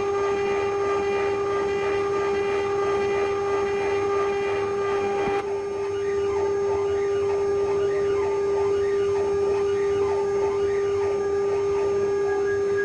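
Spindle of a 6090 CNC router running with a steady high whine as it engraves and cuts copper. The sound changes abruptly about five seconds in, and after that a rougher, uneven cutting noise rides under the whine.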